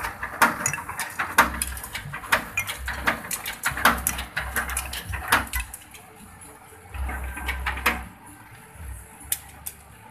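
Bamboo strip passing through the rubber feed rollers and shaving blades of a satay-skewer bamboo shaving machine: an irregular run of sharp clicks and knocks for about five seconds, a short rattle about seven seconds in, and two more clicks near the end.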